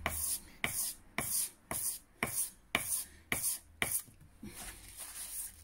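Sanding block wrapped in 400-grit wet-and-dry paper stroked back and forth across the steel bevel of a Hultafors HY20 axe head, about two scratchy strokes a second, stopping about four seconds in. The sanding is polishing out the rough file marks left from reprofiling the edge.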